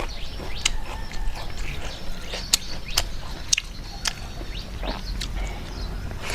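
A person chewing tuna curry close to the microphone, with lip-smacking and about half a dozen sharp mouth clicks scattered through.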